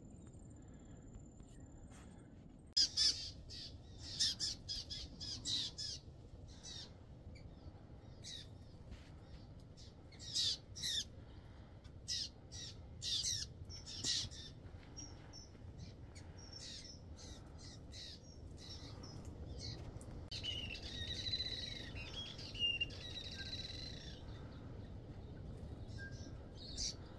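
Wild birds calling: short, harsh, scratchy calls come in clusters through the first half, then a clearer song of gliding whistled notes about twenty seconds in.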